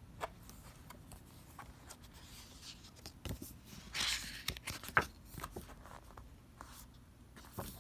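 Glossy booklet pages being turned and handled by hand: paper rustling with scattered soft taps and clicks, a swishing rustle about four seconds in and the sharpest click about a second later.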